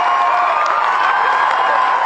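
Concert audience cheering and clapping, with many high voices holding long shouts over the applause.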